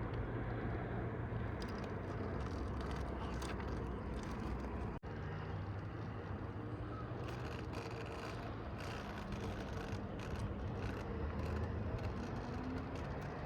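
Scale RC rock crawler's Hobbywing Quicrun Fusion brushless motor and geared drivetrain whirring at low crawling speed, the pitch shifting now and then with throttle, with tyres clicking and crunching over rock. A brief break about five seconds in.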